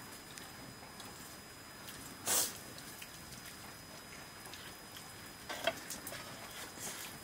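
Quiet eating sounds of people eating rice by hand off metal plates, over a faint steady hiss. There is a short rustle about two seconds in, and a few light clicks and taps later on.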